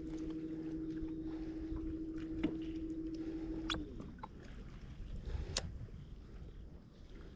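Boat's electric trolling motor running with a steady hum, cutting out about four seconds in. A few light clicks and taps follow.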